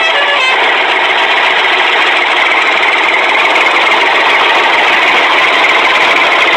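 Steady engine-like running noise, with no change in pitch, taking over as a bit of guitar music ends in the first half-second.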